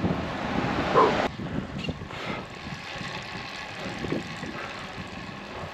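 Wind rushing over the microphone of a bike-mounted action camera, with tyre noise on a wet road while riding a road bike. It is louder for about the first second, then drops suddenly to a lower steady rush.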